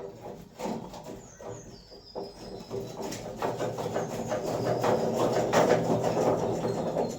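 A rapid, dense run of knocks and rattles from work on a Land Rover Defender's axle, where the axle is held up by rusted-in springs. It builds from about halfway through and is loudest near the end. Birds chirp faintly in the background early on.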